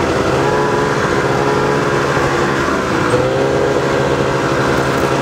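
Snowmobile engine running steadily at speed. Its pitch dips briefly about three seconds in and climbs back as it eases off and speeds up again.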